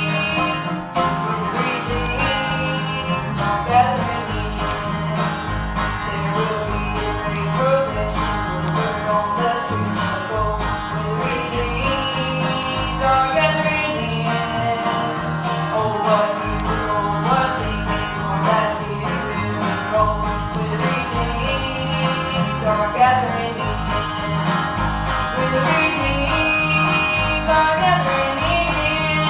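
Bluegrass-style gospel song played by a string band: plucked acoustic guitar and banjo over a steady bass beat, with singing.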